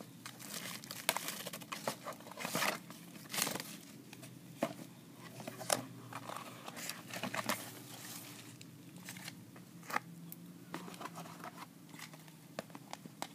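Clear plastic wrapping and a plastic blister tray crinkling and crackling as they are handled, in irregular rustles and sharp clicks.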